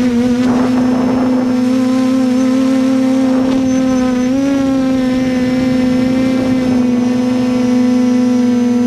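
Quadcopter's electric motors and propellers humming steadily in flight, heard close up from its on-board camera, with a brief rise in pitch about four and a half seconds in.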